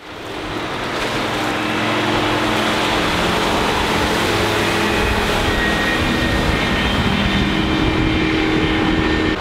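Mercruiser 5.0 MPI V8 sterndrive of a Four Winns V258 cruiser running at planing speed: a steady engine drone that fades up over the first second.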